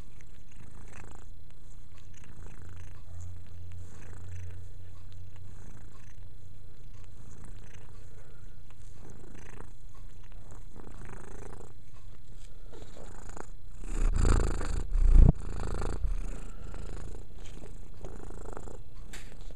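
Calico cat purring steadily right at the microphone, a continuous low rumble. Partway through comes a short, louder rustling bump that spans most of the pitch range.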